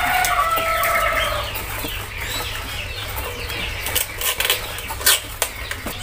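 Caged birds calling at a bird-market stall: a long drawn-out call in the first second and a half, then scattered chirps and sharp clicks and rattles from the cages.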